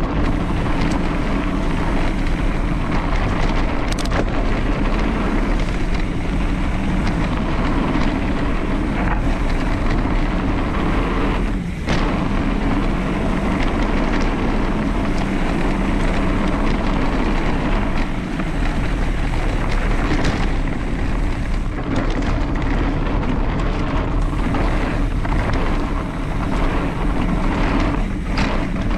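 Steady wind buffeting the microphone during a downhill run, mixed with a constant rumble of movement.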